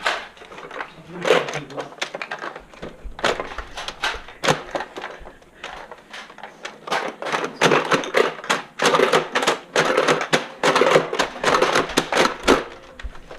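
Rapid, irregular clicking and knocking, sparse at first and dense in the second half, with voices under it.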